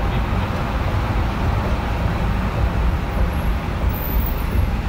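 Steady road and engine noise of a car driving through a rock tunnel, heard from inside the cabin.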